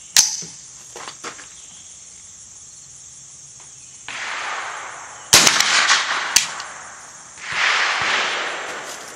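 Smith & Wesson M&P 15-22 .22 rimfire rifle firing three sharp shots, one just after the start and two about a second apart in the second half, with stretches of rushing noise between them. The rifle is failing to eject its spent cases.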